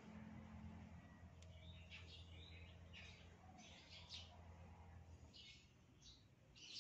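Faint bird chirps, short calls repeated every second or so, over a low steady hum that stops about five seconds in.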